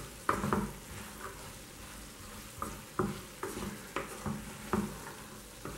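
Wooden spatula stirring and scraping dry-cooked black chickpeas around a nonstick kadhai, mixing in garam masala: short, irregular scrapes and taps about every half second. Under them, a faint steady sizzle from the pan on the heat, its water cooked off.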